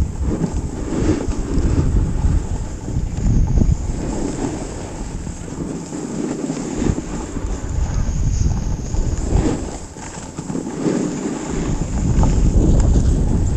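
Wind buffeting a GoPro's microphone during a ski descent, with skis hissing and scraping over groomed snow; the rumble swells and dips from turn to turn.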